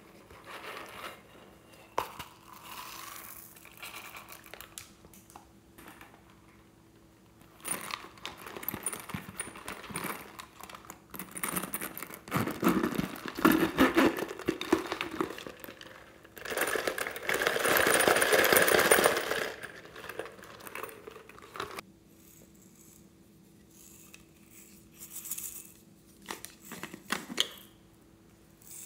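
Plastic toy pieces and containers handled by hand: scattered clicks, rattles and crinkles, including a zippered ball-shaped toy case and a container of small beads. There is a louder rasping stretch past the middle and then a steady loud rasp for about three seconds.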